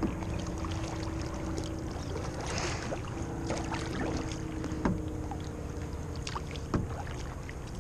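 Kayak paddle strokes: a double-bladed paddle dipping and pulling through calm lake water, with light splashing and dripping. There are a couple of sharp knocks, the first about five seconds in and the second near the end.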